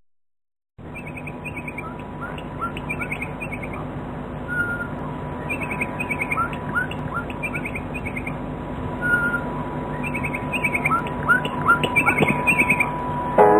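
Radio South Africa's shortwave interval signal: a recorded bokmakierie bird call, repeated chirps and short whistled notes, received off air over hiss and hum with a thin steady whistle underneath. It starts about a second in, after a brief silence.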